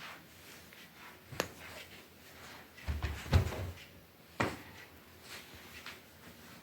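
A few knocks and a heavier thump as household objects are handled and moved, the heaviest about three seconds in.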